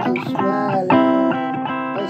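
Instrumental break of a blues record: guitar playing single-note lines with several bent notes that slide up and down in pitch.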